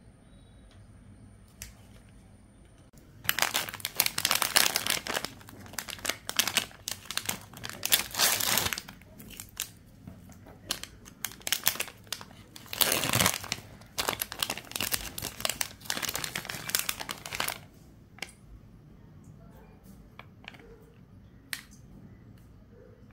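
A plastic ice-candy wrapper crinkling as hands pull it open. It starts about three seconds in, comes in loud, dense bursts for about fifteen seconds, and then only a few faint clicks remain.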